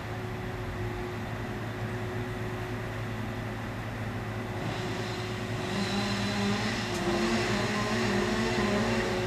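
Truck-mounted crane with a grapple-saw head felling a poplar from the top: a steady engine and hydraulic hum, joined about five seconds in by louder rushing noise and a wavering whine as the trunk top is cut free and lifted away.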